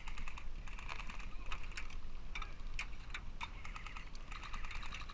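Airsoft gunfire: a rapid, irregular string of sharp clicks and snaps from guns firing and BBs striking.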